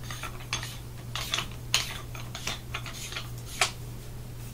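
Irregular clicks and light clinks of an Azodin Blitz paintball marker being handled as its barrel is fitted, with a sharper click near the middle and another near the end.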